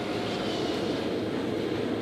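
Steady rushing noise of running forge-shop machinery, with no hammer blows.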